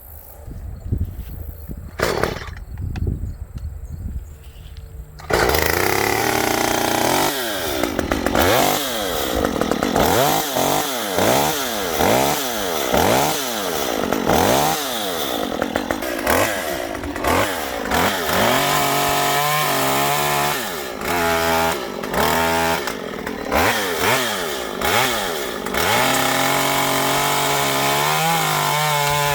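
Stihl 194T top-handle two-stroke chainsaw starting about five seconds in after a few short knocks. It is revved up and down again and again, about once a second, then drops to a steady idle between short blips of throttle.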